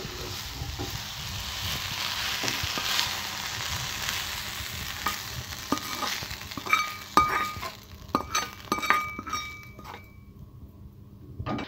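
Mint and coriander leaves sizzling in oil in a kadai while a steel spoon stirs them. From about five seconds in, sharp metallic clinks with a ringing tone as the spoon scrapes and knocks the leaves out of the pan into a steel bowl, with the sizzle dying away.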